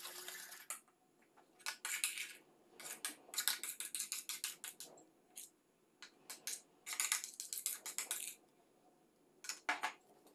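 Wire whisk and spoon scraping and clicking against enamel bowls in several short, quick bursts, as whipped egg whites are spooned in and folded into the yolk batter.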